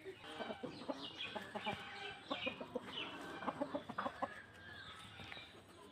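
Desi (native free-range) chickens clucking, with many short calls in quick succession that thin out in the last second or so.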